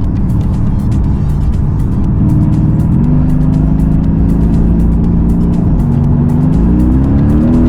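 Mercedes-AMG GT S twin-turbo V8 heard from inside the cabin while driving: the engine note steps up about three seconds in, drops at a gear change about six seconds in, then climbs steadily as the car accelerates.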